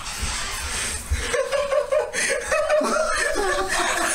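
People laughing and chuckling in excited surprise, in short choppy bursts, after about a second of breathy noise.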